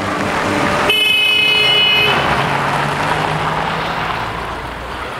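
Street traffic noise with a vehicle engine passing, and a horn sounding once for about a second, about a second in.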